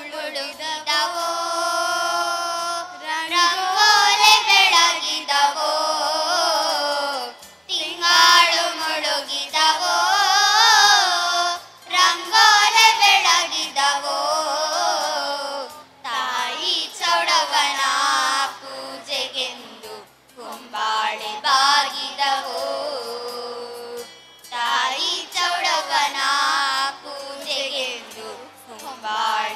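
Group of children singing a Kannada folk song (janapada geete) together through microphones, phrase by phrase with brief pauses between lines.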